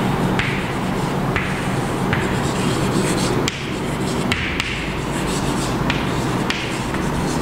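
Chalk writing on a chalkboard: a series of short scratchy strokes and taps, about one every half second to a second, over a steady background hiss.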